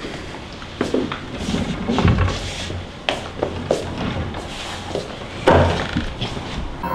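Scattered knocks, thumps and rustles of people moving about a room, with a louder knock about five and a half seconds in.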